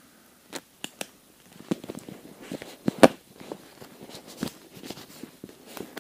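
Handling noise of flexband sealing tape being folded and fitted by hand around a corrugated plastic conduit against foil vapour barrier: scattered crinkles and clicks, with a sharper crackle about three seconds in.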